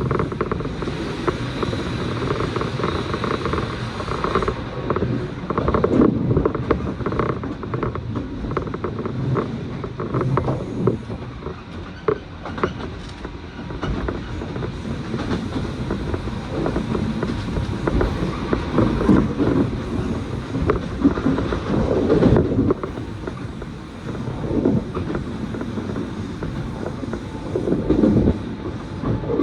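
Inside a JR electric commuter train running along the track: a steady rumble of wheels on rail, with frequent small clicks and creaks from the car.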